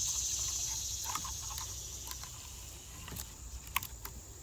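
A steady high insect buzz, like crickets, fades away over the first two seconds or so. Scattered light clicks and crackles follow in the second half.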